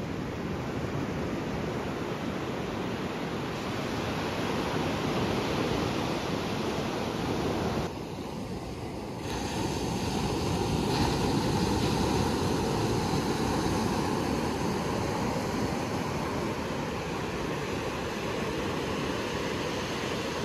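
Surf washing onto a sandy beach, a steady rush with wind on the microphone. About eight seconds in the sound briefly drops and then resumes as a similar steady rush.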